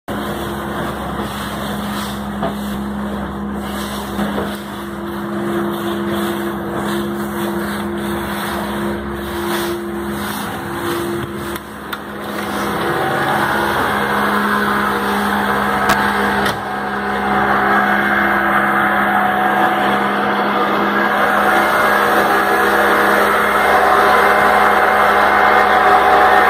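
Evinrude 90 outboard motor running steadily with the boat underway, mixed with the rushing and splashing of the wake. The water rush grows louder about halfway through.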